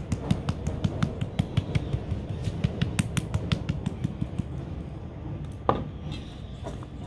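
Spice shaker jar shaken over a stainless steel bowl of cauliflower florets: a quick run of sharp clicks and taps for the first four seconds or so, then thinning out, with a single louder knock about two-thirds of the way through.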